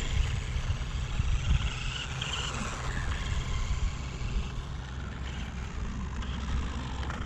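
Steady low rumble of a running vehicle, with a noisy hiss over it.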